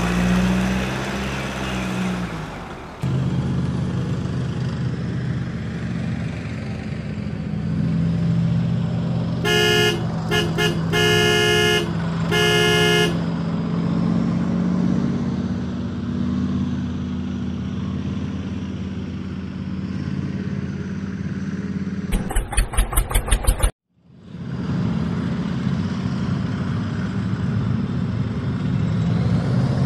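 A vehicle engine running steadily, with a horn giving several short toots about ten seconds in. Near the end comes a quick run of about ten rapid pulses, then a brief cut to silence before the engine sound resumes.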